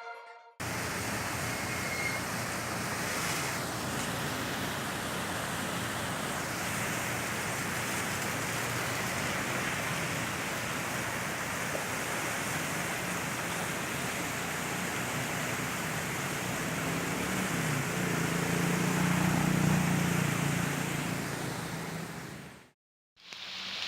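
Steady rushing noise of heavy rain and running water. A low hum builds and fades about three-quarters of the way through. It cuts off suddenly near the end.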